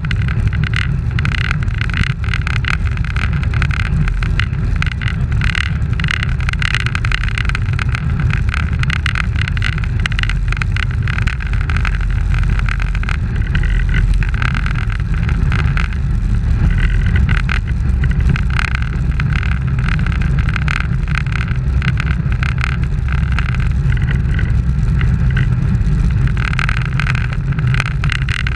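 Wind and road noise on a bicycle-mounted action camera riding at race speed in a group of cyclists: a steady low rumble with a rough, flickering hiss above it.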